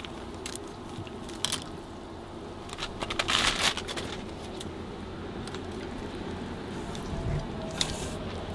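Wooden fish-cake skewers clicking and clattering against one another and the broth pot as they are lifted and handled. A short crinkling rustle comes about three seconds in, over a steady background noise.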